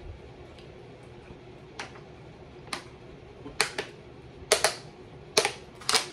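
Sharp finger snaps, sparse at first and then coming faster and louder, several in quick pairs, from someone fidgeting against the burn of very hot sauce.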